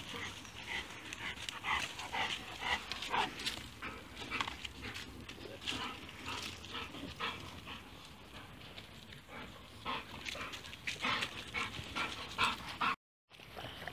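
Dogs playing together, making a rapid, irregular run of short sounds, with a brief dropout to silence near the end.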